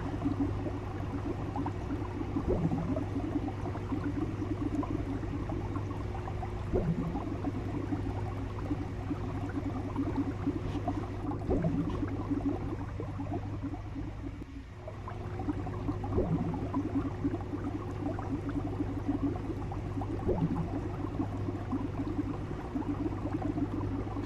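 Aquarium water bubbling and gurgling steadily over a low hum, with a brief swelling gurgle about every four seconds. The bubbling eases for a moment about midway.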